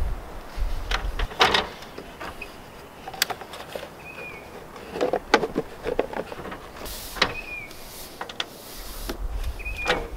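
Rigid vinyl line-set cover being slid and snapped into place over refrigerant lines: scattered sharp plastic clicks and knocks with short scrapes of plastic on plastic.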